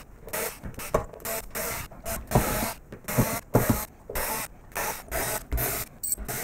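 Bosch cordless screwdriver running in short, irregular bursts as it backs the screws out of a metal amplifier cover. Near the end a screw clinks into a small glass dish.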